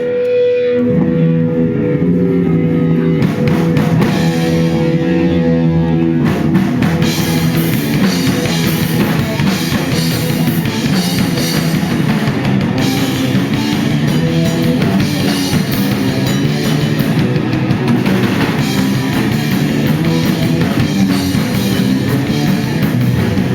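Live rock band playing the instrumental intro of a song. Guitar notes alone at first; drums come in a few seconds in, and the full band with cymbals plays from about six seconds in.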